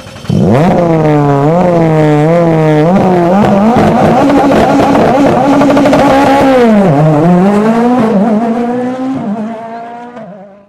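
Race car engine accelerating hard through the gears: the pitch climbs and falls back with several quick upshifts in the first three seconds, then holds high. About seven seconds in it dips sharply and climbs again, then fades out near the end.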